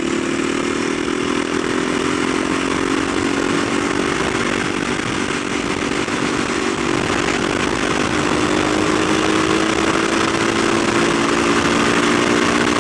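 Kawasaki supermoto motorcycle engine running steadily at highway speed, its pitch creeping slightly upward, with heavy wind noise buffeting the helmet microphone.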